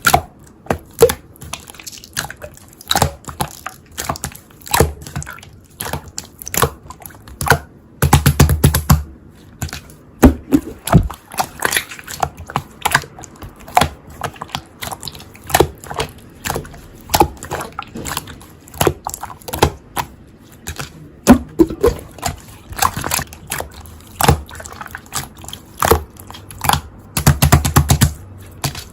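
Slime being squished and stretched by hand: irregular clicks and pops of trapped air, with a longer, denser run of squishing about eight seconds in and again near the end.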